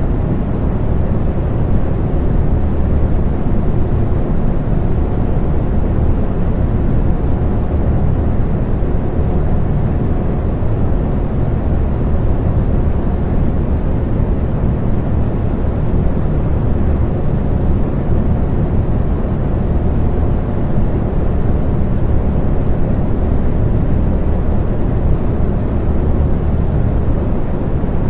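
Electric fan running steadily: a deep, even rush of air with a faint steady hum in it.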